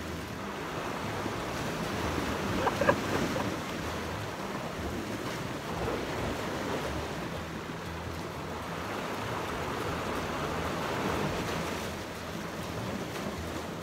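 Sea surf washing in steadily, with some wind on the microphone, and one short sharp knock about three seconds in.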